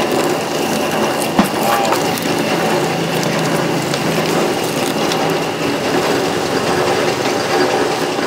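A machine running with a steady mechanical clatter and grinding, a low hum for a few seconds in the first half, and one sharp knock about a second and a half in.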